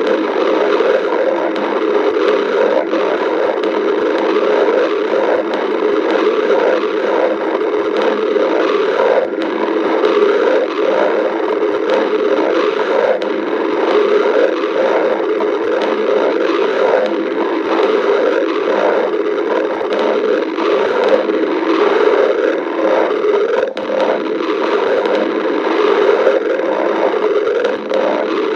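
A person's stomach growling and gurgling without a pause.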